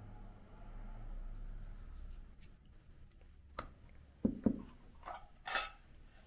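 Dishes being handled and set down on the table: a sharp click, then two quick knocks, followed by a few short scraping sounds.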